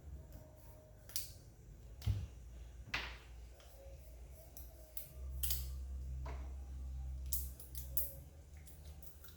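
Scattered plastic clicks, taps and a thump from handling ink bottles and the printer's ink-tank caps while filling the tanks. A low hum runs for about two seconds in the middle.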